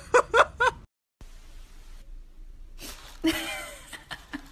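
A German Shepherd whining in four short, rising yelps in quick succession, cut off abruptly about a second in. Then low room noise with a few faint voice-like sounds about three seconds in.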